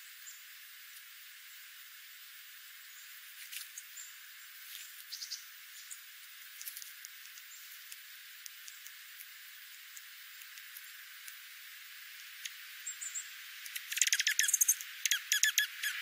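Dark-eyed juncos feeding on scattered birdseed: faint scattered ticks and a few brief high chips, then near the end a burst of loud, rapid clicking.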